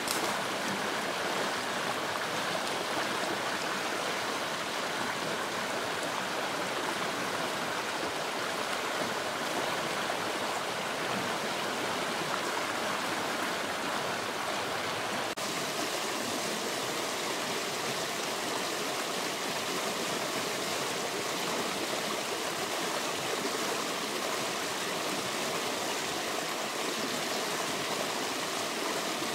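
Rushing water of a rocky stream: a steady, even hiss of fast-flowing water over stones. The water sound shifts abruptly in character about halfway through.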